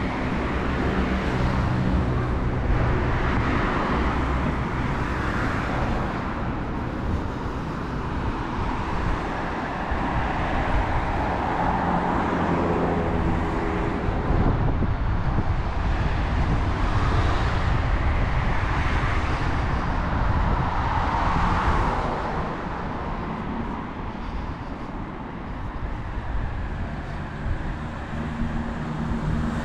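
Urban road traffic: several cars pass one after another, their tyre and engine noise swelling and fading over a steady low rumble.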